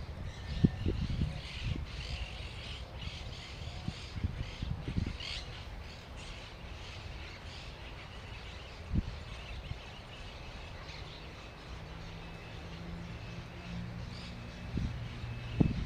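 Birds calling outdoors, short squawking calls scattered mostly through the first half. Irregular low thumps and rumble run underneath, with a faint low steady hum near the end.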